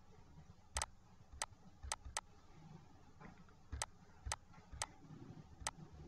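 Computer mouse button clicking: about eight faint, sharp clicks at irregular spacing, two of them in quick succession about two seconds in.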